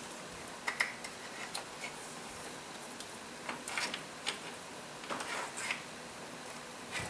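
Scattered light clicks and taps of the lower timing-chain guide of a Dodge 4.7 L SOHC engine being slid out and handled, about ten small strikes spread irregularly.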